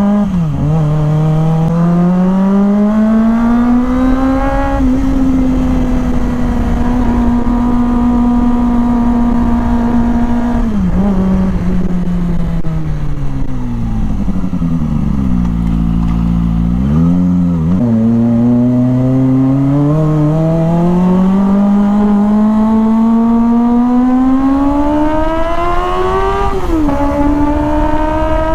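Kawasaki ZX-25R's 250 cc inline-four engine under way: the revs climb and hold, sink low in the middle, then pull steadily up again, dropping sharply at each gear change.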